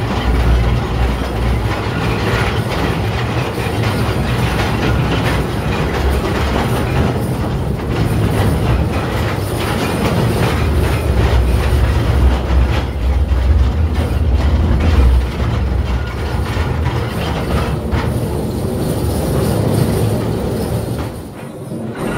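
1948 electric mine locomotive and its car running along the mine track: a steady, loud rumble with the clatter of steel wheels over the rails.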